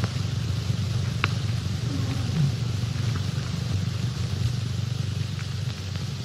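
Steady low hum and hiss of an old optical film soundtrack, with a few faint clicks.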